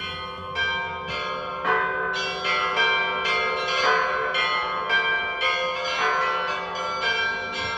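Orthodox church bells ringing: several bells of different pitches struck in quick succession, each stroke ringing on into the next.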